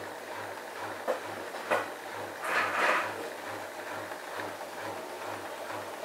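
Bosch built-in washing machine running a rinse cycle: a low hum pulsing about four times a second, two sharp clicks about a second and a second and a half in, and a louder rushing swish of water and laundry tumbling in the drum near the middle.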